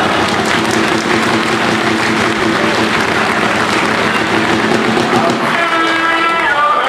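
Crowd of football supporters clapping, a dense patter of many hands over massed voices; a little past halfway, the crowd starts singing a chant.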